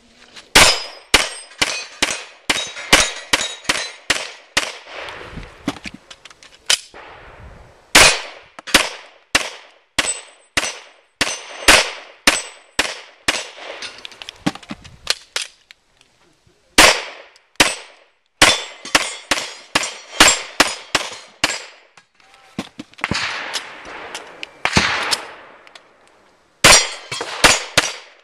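Handgun fired in fast strings at steel plate targets, about two to three shots a second, with short breaks between strings. Thin metallic rings from the struck plates linger after some shots.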